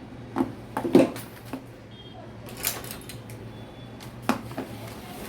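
A string of light clicks and knocks from plastic toy pieces being handled and set in place, the loudest about a second in and others scattered through.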